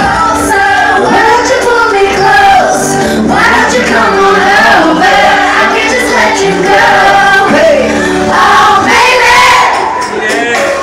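Karaoke: a woman singing over a loud pop backing track.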